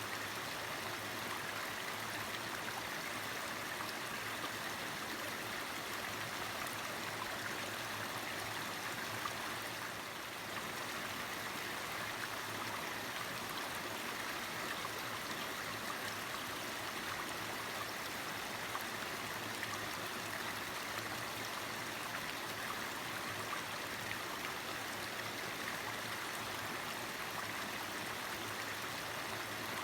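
Mountain stream water flowing and burbling steadily over rocks.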